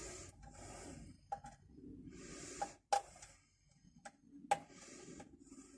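Quiet hand-work noises: soft rustling with a few light, sharp clicks and taps scattered through, as of wire and small tools being handled.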